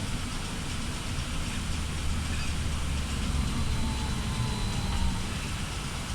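BKM 433000D trolleybus under way, heard from inside the cabin: a steady low rumble of the body and running gear with road noise, and a faint whine from the electric traction drive.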